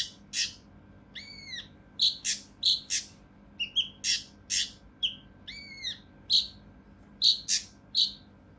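Kinoi (cucak rante mas) calling agitatedly in rough, tightly spaced 'shot' notes: a quick run of short, sharp, high calls with a few arched whistled notes among them, stopping about eight seconds in.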